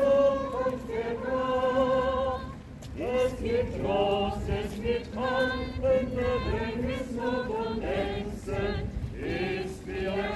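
A group of people singing a hymn together without accompaniment, in held notes that step from pitch to pitch.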